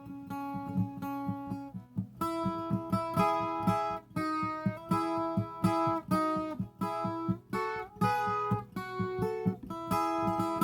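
Viola caipira playing a melody solo: a long held note, then from about two seconds in a run of shorter plucked notes over a steady low rhythmic pulse.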